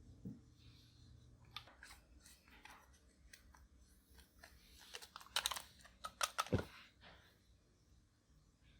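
Eyeshadow and makeup being handled and broken up by hand: scattered clicks and crunchy crackles, coming thickest and loudest about five to seven seconds in.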